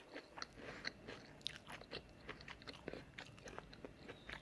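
Mouth sounds of a person chewing a mouthful of udon noodles and vegetables: faint, irregular small clicks and smacks.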